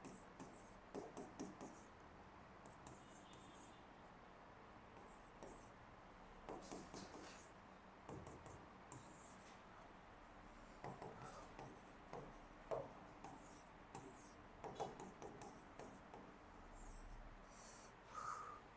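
Faint, irregular scratching of someone writing, in short runs of strokes with pauses between them.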